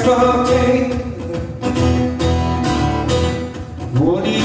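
A song playing: a voice singing Swedish lyrics in long held notes over guitar accompaniment.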